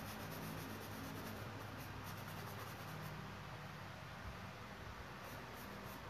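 Faint, scratchy strokes of a painting tool on canvas over steady room noise with a low hum.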